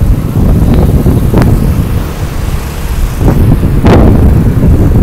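Heavy wind rumble on the microphone of a camera riding a moving motor scooter, mixed with the scooter's engine and road noise. A few sharper gusts thump against the microphone, the strongest near four seconds in.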